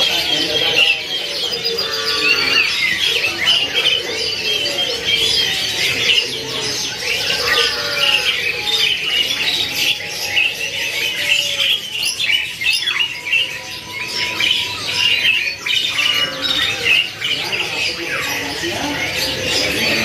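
Many caged birds calling at once in a bird market: a dense, overlapping chorus of high chirps, trills and squawks that never lets up.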